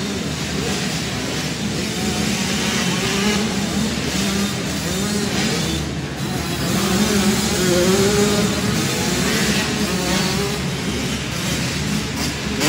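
A pack of 85cc two-stroke dirt bikes racing, their engines revving up and down over and over, echoing in an indoor arena.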